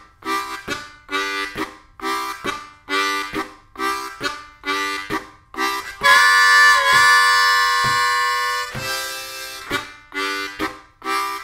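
Diatonic harmonica in C playing a train imitation: chugging chords on holes 1-2-3, alternating blow and draw at about two chugs a second, then about six seconds in a loud train-whistle wail drawn on holes 3 and 4 as two 'wah's, followed by a breath out over the harmonica, before the chugging picks up again.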